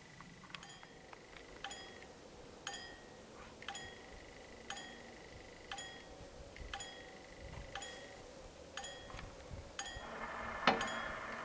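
Level-crossing barrier warning bell (Läutewerk), very faint, striking about once a second with a ringing tone, signalling that the barriers are about to close. Near the end a louder mechanical noise sets in with a sharp click as the barrier drive starts.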